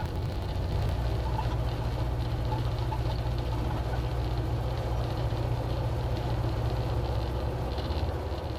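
Zenith CH-650 light aircraft's engine running steadily at low power, a low even hum heard from inside the cockpit.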